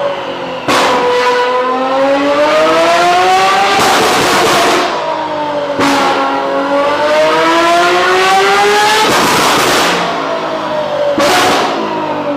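Ferrari 812's naturally aspirated V12 through a modified valved exhaust, revving hard: the engine note dips and climbs again and again. Each sweep is broken by a short sharp crack at the gear changes, five or so times.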